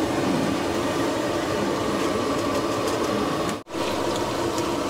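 Steady roar of the gas burner under a big pot of mutton curry, cutting out for a split second about three and a half seconds in. Water is then poured from a jug into the simmering curry.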